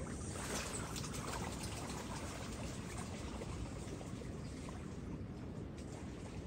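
Shallow seawater lapping and trickling, a steady wash with a low rumble beneath and a few faint splashy ticks about a second in.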